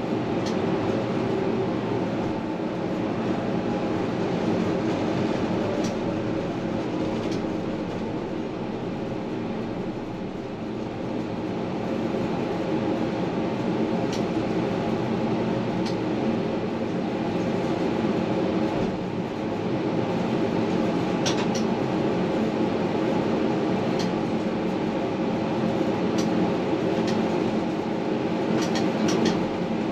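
Tram running along its track, heard from inside the front of the car. Steady rumble of the wheels on the rails with a constant hum underneath, and a few light clicks scattered through the second half.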